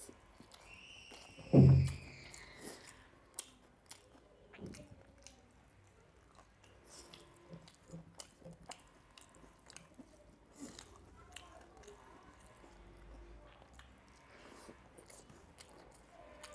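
Close-up eating sounds: chewing and small wet clicks as fingers mix rice and small-fish curry on a steel plate. One loud thump comes about a second and a half in, alongside a short falling squeak.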